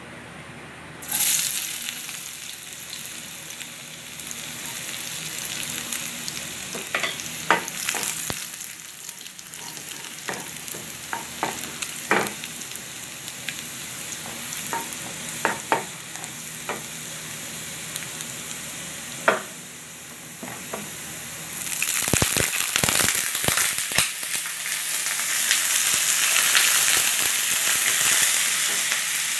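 Chopped garlic hitting hot oil in a nonstick wok about a second in and sizzling steadily, with sharp clicks of a wooden spatula against the pan as it is stirred. About 22 seconds in, a few knocks, then the sizzle grows louder as shrimp go into the pan.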